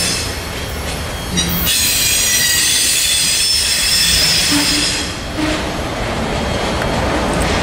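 Double-stack intermodal freight train rolling by, with a steady rumble and high-pitched squealing from its wheels; the squeal eases off about five seconds in.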